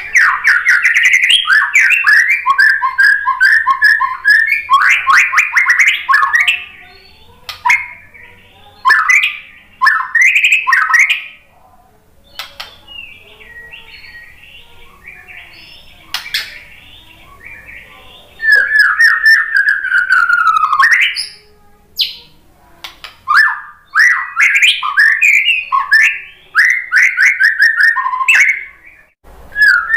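White-rumped shama (murai batu) singing in loud bursts of rapid, repeated whistled notes and trills, with a much softer warbling stretch partway through.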